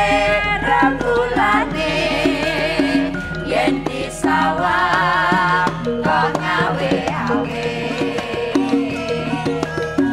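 Voices singing a Javanese song together, with vibrato on the held notes, over gamelan accompaniment with kendang hand-drum strokes and metal mallet instruments.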